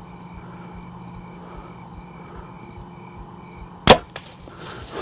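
Compound bow shot once about four seconds in: a single loud, sharp crack of the string's release. Insects chirp steadily underneath, about twice a second.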